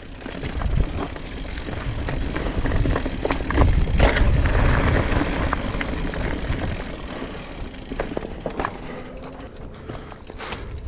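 Mountain bike ridden slowly down a rocky technical trail: tyres rolling and knocking over rock, with scattered clicks and rattles from the bike and a low rumble of wind and motion on the microphone, loudest about four seconds in.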